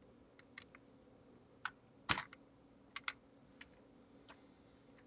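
Computer keyboard typing: a dozen or so irregular key presses, the loudest about two seconds in, over a faint steady low hum.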